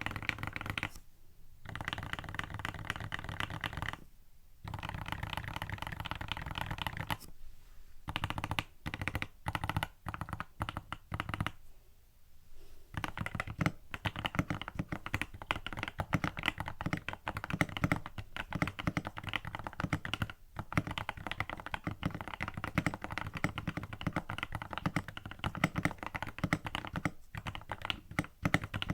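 Mechanical keyboard typing on a Tester68 fitted with lubed Outemu pink linear switches, the creamy-sounding keystrokes of a switch sound test. Fast runs of keystrokes broken by a few brief pauses, then steady rapid typing from about halfway through.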